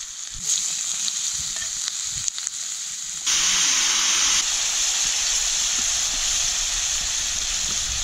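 Sliced onions frying in oil in a cast iron pan, sizzling steadily with light scrapes as they are stirred with a knife. About three seconds in, liquid is poured from a kettle into the hot pan and the sizzle jumps suddenly to a louder, fuller hiss as steam boils off.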